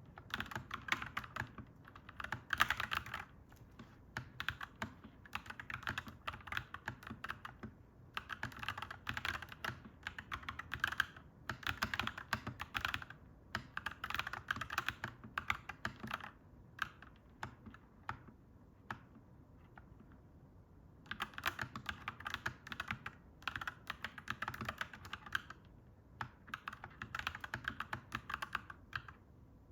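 Clacky mechanical keyboard being typed on in quick runs of keystrokes, with short breaks and one longer pause of a few seconds a little past the middle. A faint low rumble runs underneath.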